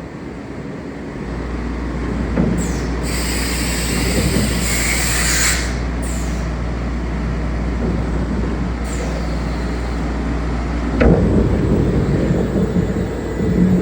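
A machine running with a steady low rumble. A loud hiss lasts a few seconds starting about two and a half seconds in, and a sharp knock comes near the end.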